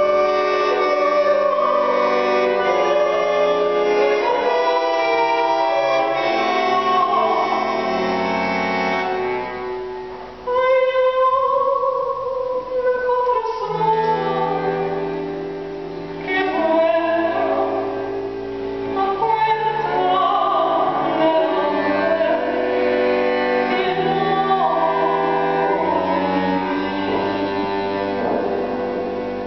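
A woman singing with vibrato while accompanying herself on a bandoneon, which holds sustained chords under the melody. The music dips briefly about ten seconds in, then voice and bandoneon carry on.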